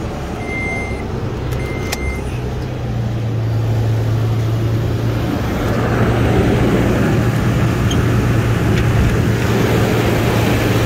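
2007 Toyota FJ Cruiser's 4.0-litre V6 idling steadily, louder from about six seconds in as the open engine bay is reached. Near the start, a dashboard warning chime beeps twice.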